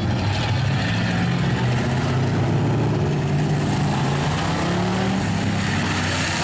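A pack of short-track stock cars racing past at speed, several engines running hard together in a steady, loud drone.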